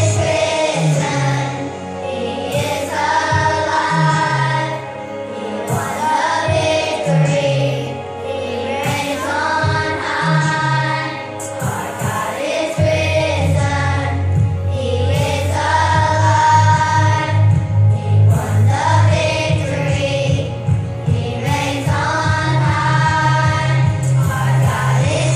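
Children's choir singing a praise song over instrumental accompaniment. A bass line pulses under the voices, steadier and fuller from about halfway through.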